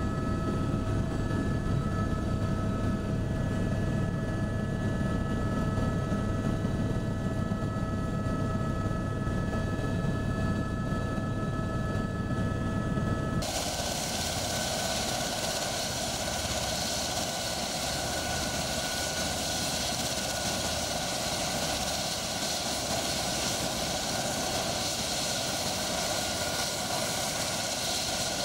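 Helicopter heard from inside the cabin in flight: a deep steady rumble with a steady multi-tone whine. About thirteen seconds in it cuts to a helicopter running on a helipad with its rotors turning, a steady rushing noise with a high whine over it.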